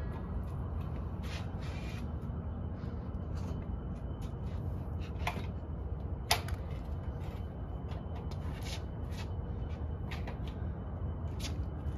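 Scattered clicks and clacks of an electric kick scooter being handled as its folding stem is worked, with one sharp click about six seconds in, over a steady low rumble.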